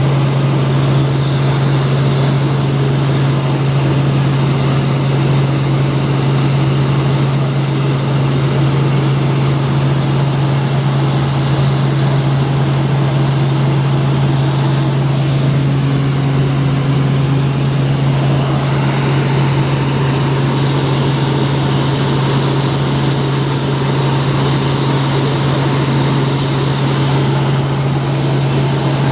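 Helicopter in cruising flight heard from inside the cabin: a steady, deep hum from the rotor and engine over a constant rush of noise.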